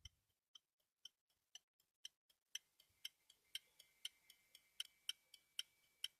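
Faint, regular ticking, about two ticks a second, some ticks stronger than others. About three seconds in, a faint steady high-pitched tone joins it.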